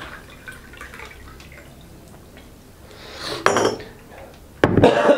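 Water poured from a plastic pitcher into a drinking glass, with a rising hiss about three seconds in; a sharp knock follows near the end.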